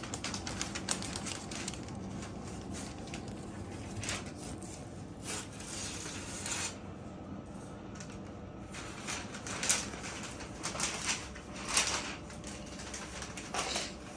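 Newspaper rustling in short bursts as cats shift and are petted on the spread pages, over a low steady room hum. The rustles come in scattered clusters from about four seconds in.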